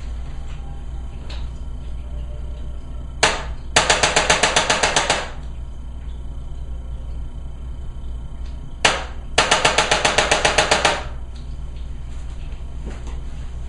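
Handheld electronic chiropractic Impulse adjusting instrument firing twice. Each time a single click is followed by a fast run of about a dozen even clicking thrusts lasting about a second and a half.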